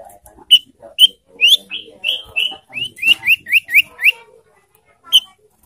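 Common iora calling: a run of short upslurred whistles, a few spaced notes at first and then about four a second, with one more note after a short pause.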